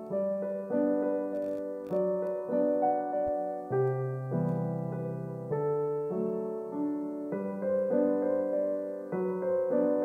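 Background piano music: a slow, gentle melody of struck notes over chords.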